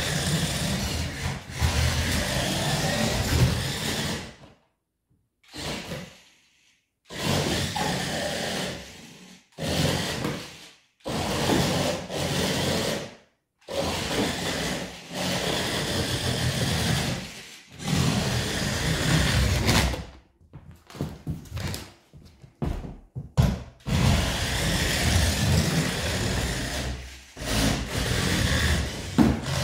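Small electric motor and gearbox of a toy RC car whirring as it drives across a wooden floor. It stops and starts over and over, in runs of one to three seconds with short silences between them.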